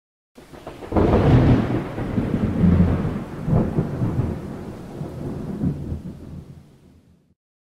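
Thunder rumbling, with a sharp crack about a second in and a second surge a few seconds later, rolling off and fading out near the end.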